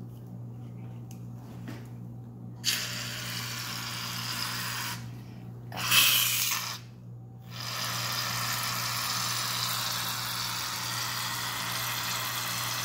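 Aerosol can of shaving cream hissing as foam sprays out into a bowl. It comes in three spurts: a first of a couple of seconds, a louder brief one, then a long steady spray through the second half.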